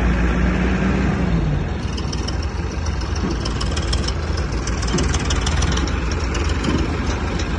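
Heavy diesel machinery idling: the engines of a backhoe loader and a tractor run with a steady low drone, one engine's revs dropping away about a second and a half in. A fast, fine high ticking sits over the drone from about two seconds in.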